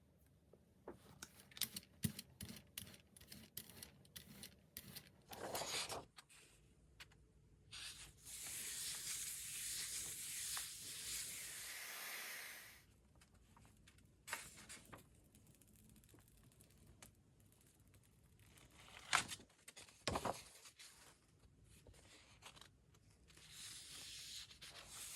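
Gel-plate printing close to the microphone: scattered taps and paper rustles. About eight seconds in comes a long sticky peel, about four seconds, as a print is lifted off the gel plate, then more rustles and a few sharp ticks.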